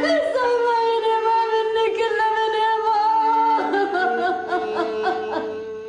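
A mournful sung vocal: a voice holding long, slightly wavering notes, a lament beginning over the scene, fading near the end.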